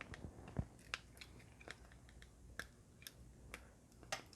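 Faint, irregular light clicks and taps, a dozen or so scattered over a few seconds, of a phone screen and small tools being handled on a workbench.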